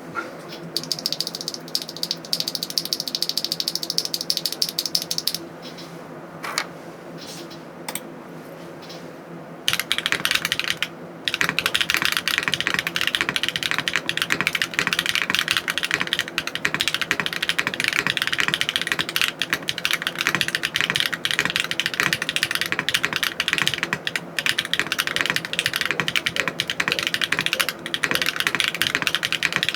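Mechanical keyboard fitted with HMX Serene Green linear switches (POM bottom housing, factory-lubed UPE stem) in an aluminum plate with no foam, being typed on. A rapid run of keystrokes comes first, then a few single presses, then steady fast typing from about ten seconds in.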